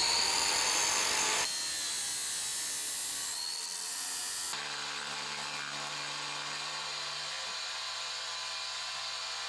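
An angle grinder's abrasive cut-off disc cuts through a steel angle bar with a high whine that rises at the start as the disc gets up to speed. About four and a half seconds in, the sound changes abruptly to a table saw running steadily as a wooden plank is fed through it.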